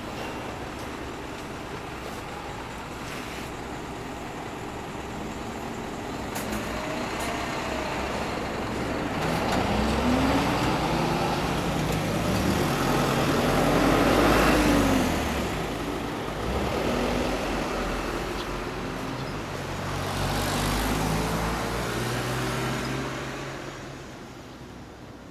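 Kawasaki Z1000's inline-four running through a BEET Nassert Evolution exhaust, mostly a steady idle with small changes in pitch. It swells louder about halfway through and again later, then fades near the end.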